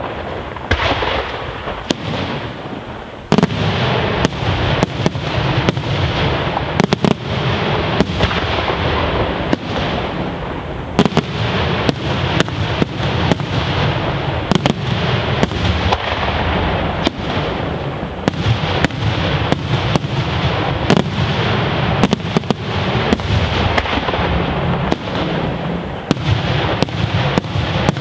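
Daytime aerial fireworks: a dense barrage of shells bursting overhead, many sharp bangs one after another over a constant crackling din. The din eases briefly about two seconds in, then a loud bang restarts it.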